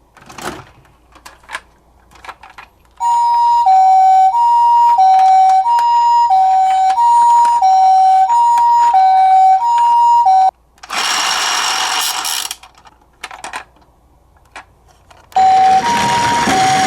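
Toy ambulance minicar's electronic two-tone hi-lo siren in the Japanese ambulance 'pee-poh' pattern: high and low notes alternate about every two-thirds of a second. A few clicks come before the siren starts. It stops about ten seconds in, a brief burst of harsh noise follows, and near the end the siren starts again over a noisy hiss.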